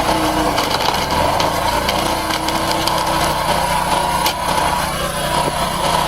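Heavy machinery running steadily with a constant low hum, a rattling noise on top, and scattered sharp clicks and knocks.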